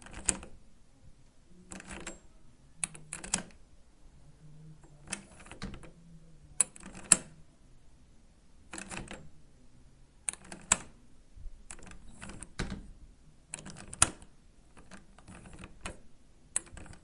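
Push handle and lock of a metal door worked over and over: bursts of sharp clicks and rattles every second or two, some with a pair of sharp clicks about half a second apart.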